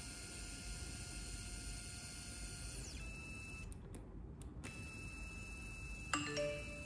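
Stepper motor of a gear-driven linear actuator running with a faint steady whine and hum, its tone shifting about three seconds in. Near the end a sudden click and a louder pitched buzz as the motor stalls.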